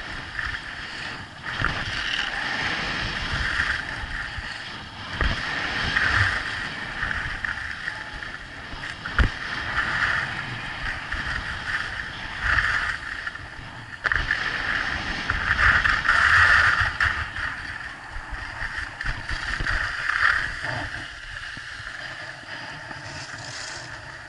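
Wind rushing over an action camera's microphone and snow scraping under a rider sliding down a groomed slope, the scraping hiss swelling and fading every few seconds, with a few low thumps.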